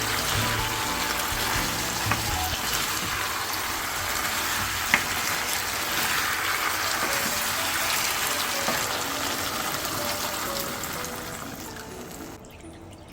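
A steady watery hiss under soft background music, fading out near the end.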